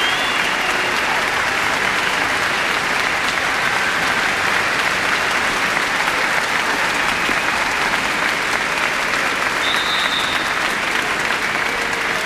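Large concert audience applauding steadily.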